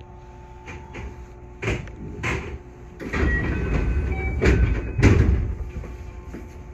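Inside the cab of a 221 series electric train at a station stop: two short door thuds, then a louder stretch of rumbling noise from about three seconds in, with two heavy clunks near the end of it.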